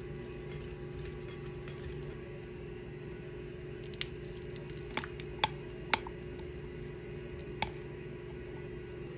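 Wire balloon whisk stirring wet cookie batter in a glass mixing bowl. From about four seconds in come several sharp clinks of the wires against the glass, the two loudest near the middle. A steady low hum runs underneath.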